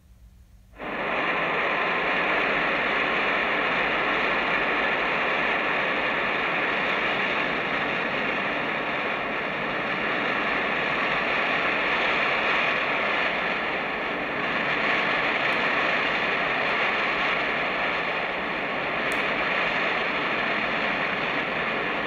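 Giant flying monster sound effect, made from Rodan flying sounds: a steady rushing, wind-like noise that starts suddenly about a second in and holds on.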